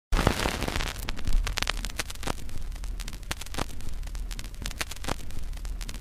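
Old-film crackle sound effect: a steady hiss with irregular pops and clicks over a low hum, ending abruptly.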